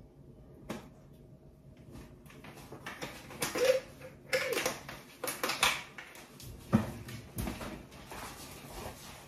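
Light kitchen handling noise: scattered clicks and knocks of small objects being handled on a counter, busiest in the middle, with a couple of dull thumps near the end.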